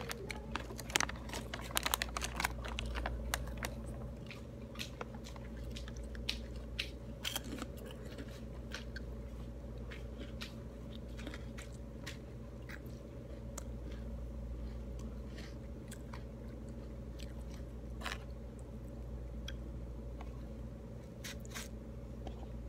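Close-up chewing and crunching of a crunchy packaged snack, the crunches coming thick in the first few seconds and then sparser.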